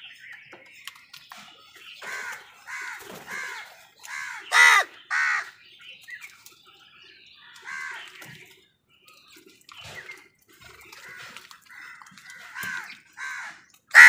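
House crows cawing: a string of short, harsh caws at irregular intervals, the loudest two coming close together about four and a half seconds in.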